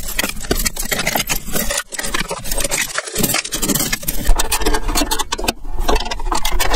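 Rapid, irregular metallic rattling and scraping over a running engine, from the combine's header drive, which the owner suspects has a bearing going out.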